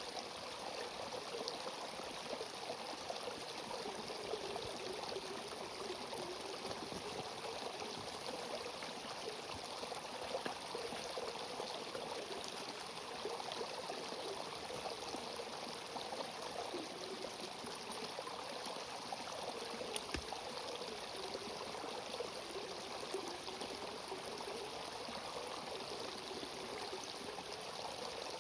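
Steady running water, like a stream, rushing without a break.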